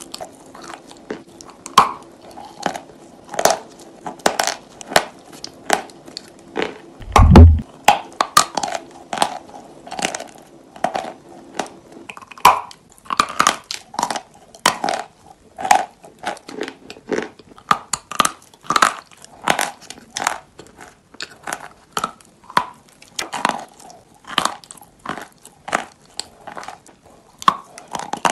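Close-up crunching and chewing of paste-coated chalk: sharp crunches follow one another, about one or two a second. A single loud low thump comes about seven seconds in.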